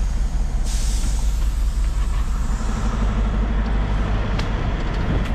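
Semi truck's diesel engine idling steadily, with a hiss of released air from the air brake system starting about a second in and fading over the next two seconds. A light click comes near the end.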